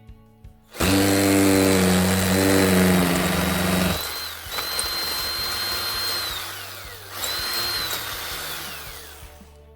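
Power drill boring a hole into a brick wall: one loud run of about three seconds, then two shorter bursts, each ending in a whine that falls in pitch as the motor spins down.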